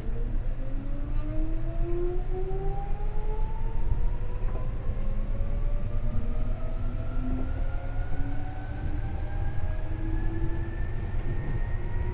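Seibu 2000 series electric train accelerating, heard from inside the car: the traction motors and gears whine in several tones that climb steadily in pitch as it picks up speed, over a steady low rumble of the wheels on the track.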